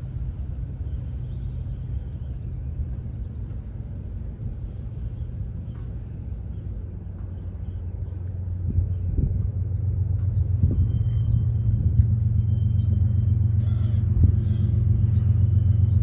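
Diesel locomotives at the head of a double-stack freight train running with a steady low engine drone, growing louder from about halfway as the train comes closer. Small birds chirp faintly throughout.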